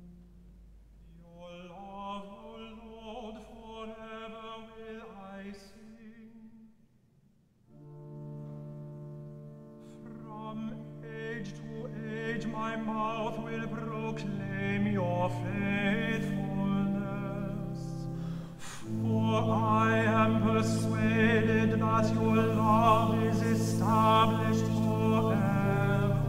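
A solo male voice sings a psalm setting over sustained organ chords. The music breaks off briefly about six seconds in, resumes, and grows louder about nineteen seconds in.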